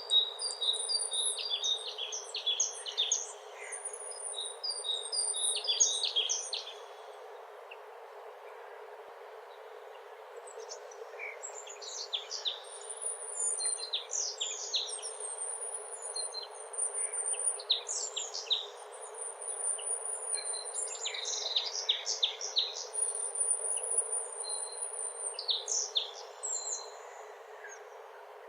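Several songbirds singing in overlapping phrases of quick chirps and high, thin trills, falling quiet for a few seconds about a quarter of the way in, over a steady hiss of outdoor ambience.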